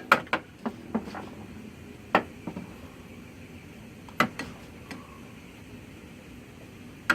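Scattered sharp clicks and taps from hands working on the glow plug harness connectors while packing them with grease: a quick run of clicks at the start, then single clicks about two and four seconds in.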